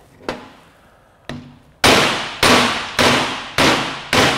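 Hammer striking the steel yoke of a Land Rover propshaft held in a vise, driving out a worn universal joint's bearing cap. Two light taps, then heavy, ringing blows at an even pace of a little under two a second.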